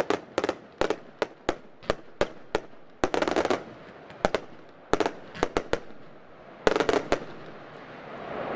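F2-category fireworks going off: sharp bangs at irregular intervals, some in quick bunches, thinning out and stopping about seven seconds in.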